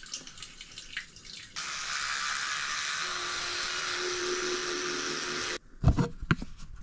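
Sink faucet turned on about a second and a half in, running in a steady stream with a faint steady tone under it for about four seconds, then shut off suddenly. A few sharp knocks follow near the end.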